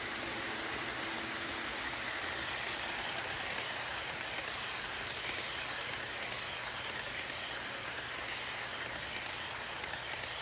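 HO scale model passenger trains running on sectional track: a steady whirring rattle of metal wheels rolling on the rails and the locomotives' motors, with no break in it.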